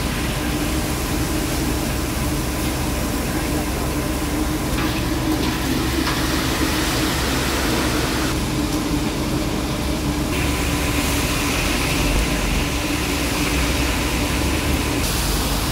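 Steady roar of a busy commercial kitchen: large gas wok burners and fans running with a constant low hum, with voices in the background.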